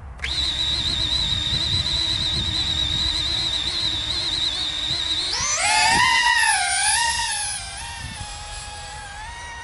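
High-KV brushless motors of a 3D-printed 3-inch racing quad on a 6S battery, whining steadily at idle once armed. About five seconds in they spool up into a rising, wavering whine as the quad launches, and the whine becomes quieter and steadier as it flies off.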